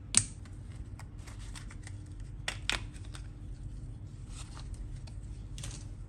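Hands handling laptop parts: a sharp plastic click near the start, two quick clicks about halfway, and light scraping and tapping between them.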